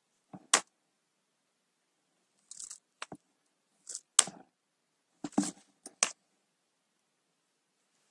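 Computer keyboard keys pressed now and then: several separate clicks and taps spread over about six seconds. The loudest come about half a second in and around the four-second mark.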